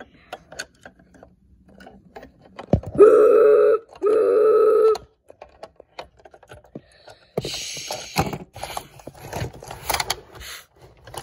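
Toy train's whistle sounding twice, two steady blasts of just under a second each about three seconds in. Around them, clicks and knocks of the plastic toys being handled, and a short hiss about seven seconds in.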